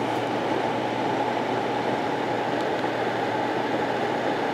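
DynaTrap XL (DT2000XLP) insect trap's electric fan running steadily: an even rushing noise with a low, steady hum underneath.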